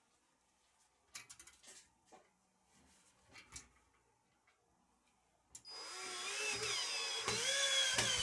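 A few light clicks and knocks as the metal bracket is handled, then a cordless drill/driver starts up about five and a half seconds in, driving a screw into the wall-mount TV bracket. Its motor whine wavers, dipping in pitch and rising again, and it is the loudest sound here.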